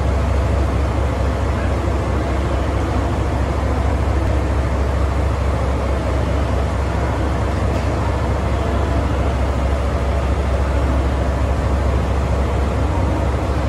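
Center-cab diesel locomotive idling at a standstill: a steady, loud, low engine drone that holds without change.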